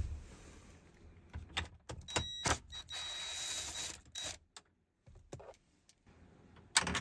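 Small power tool on a long extension, most likely a cordless ratchet, whirring steadily for about two seconds as it backs out a 7mm bolt behind the instrument cluster. Before it there are a few metallic clicks as the socket is fitted onto the bolt, and near the end there is one sharp clack.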